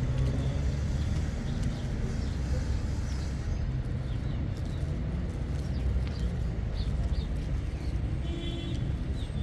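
Steady low rumble of a motor vehicle running, with faint short high chirps from about the middle on.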